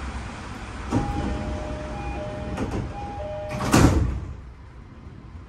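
Door-closing chime of an E233-series 7000 train: a two-note chime, high then low, sounds three times, and the sliding doors then shut with a loud thud.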